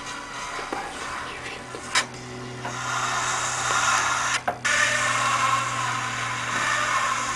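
A vinyl record played acoustically through a paper cone held on the spinning disc: thin, scratchy sound from the groove over a steady turntable motor hum, with a sharp click about two seconds in and a brief dropout midway.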